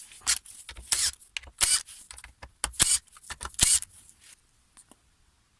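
Small metal hand tools clinking and clicking as they are handled and set down, a Torx bit and an 8 mm socket among them; five or so sharp clinks in the first four seconds, then it goes quiet.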